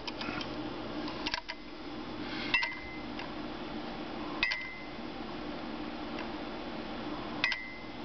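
Arora-681 drinking bird toy bobbing on its pivot and dipping its beak to a ceramic mug of water: three sharp clinks a few seconds apart, each with a short ring, as it tips down to drink, plus a lighter tap about a second in.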